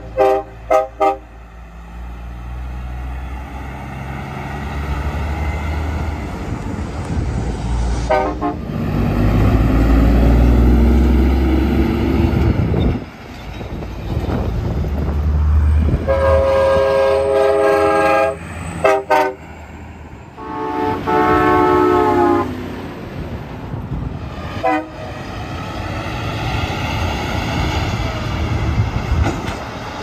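Train horns fitted to semi-trucks, sounding chords as the trucks pass: quick toots at the start, short toots about eight seconds in, a long blast about sixteen seconds in followed by quick toots, another long blast around twenty-one seconds, and a short toot near twenty-five seconds. Between the blasts, the trucks' diesel engines and tyres rise and fall as they go by.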